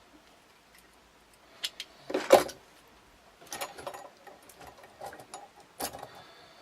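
Wire being bent to shape for a body-grip trap trigger: scattered short metallic clicks and clinks of wire and tools being handled. After a quiet start, the loudest clatter comes about two seconds in, with lighter clicks following.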